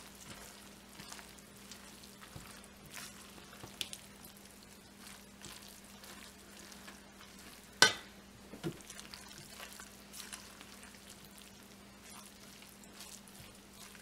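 Silicone spatula stirring tortellini, mushrooms and kale in a cooking pot, with soft scraping and faint sizzling. One sharp click about eight seconds in.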